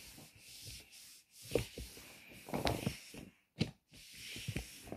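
Objects being handled and rubbed about on a desk, with rustling and scraping and a few sharp knocks.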